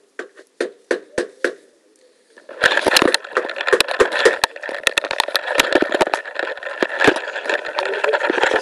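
Handling noise on a body-worn camera: a few separate sharp knocks, then about six seconds of dense crackling and rustling as the camera rubs and is moved about.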